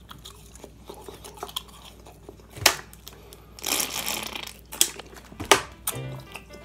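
Eating breaded fried chicken nuggets: biting and chewing with irregular crisp crunches, a few of them sharp and loud.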